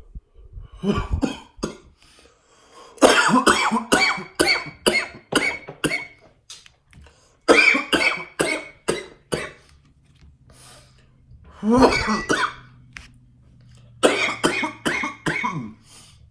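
A man coughing hard after inhaling a dab from a nectar collector, in about five fits of rapid coughs with short pauses between.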